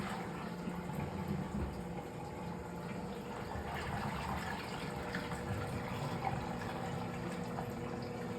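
Fisher & Paykel MW059NZ washing machine filling: water pouring steadily into the drum, with a faint steady hum beneath it.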